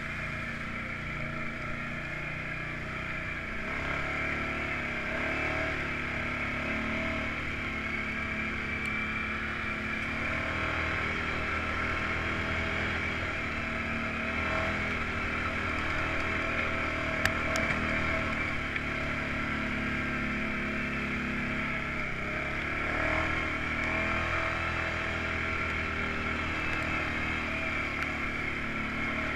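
An off-road vehicle's engine running under way, its pitch rising and falling a little with the throttle. A single sharp click comes about two-thirds of the way through.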